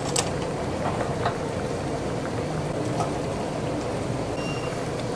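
Steady kitchen noise, the kind made by soup boiling on burners and the hood fan running, with a few light clicks of utensils. A faint high tone comes in near the end.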